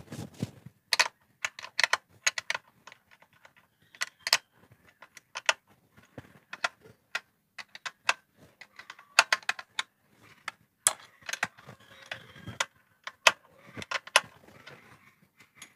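Steel wrench working the bolts on the metal mounting bracket of a sewing machine clutch motor: irregular metallic clicks and clinks, a few of them sharp and loud.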